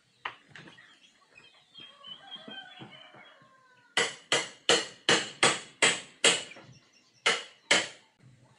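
Hammer blows during demolition of the old house: a quick run of about seven sharp strikes, then two more after a short pause, starting about four seconds in. Birds chirp faintly before the strikes.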